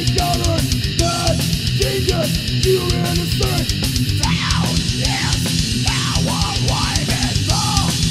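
Thrash/death metal band playing: fast drumming and heavily distorted electric guitars, with a higher melody line of bending notes over them.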